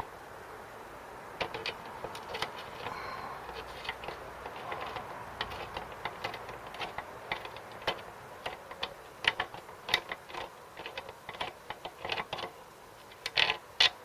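Irregular metallic clicks and taps of hand tools and loosened parts as the carburettor and fuel tank are unbolted from a Briggs & Stratton mower engine, with faint road noise behind.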